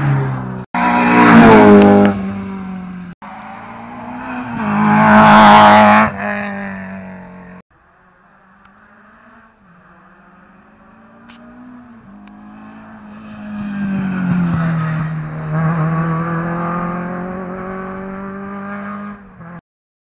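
Rally car engines revving hard as the cars pass at speed, in several short clips that cut off abruptly. Later a quieter engine builds as it approaches, passes and fades, then stops suddenly near the end.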